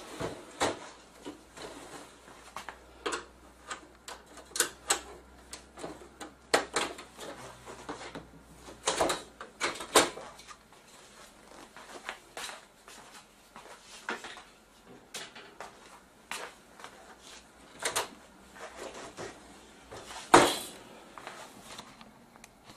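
Plastic frame clips of an LC320WXN LCD panel clicking and snapping free as the frame is worked loose and lifted off the metal backlight chassis. Many irregular clicks and knocks, with one louder knock about twenty seconds in.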